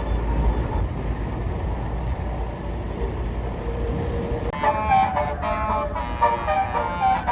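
A bus engine running with a low rumble, then about four and a half seconds in a Basuri telolet horn starts playing a fast multi-note tune.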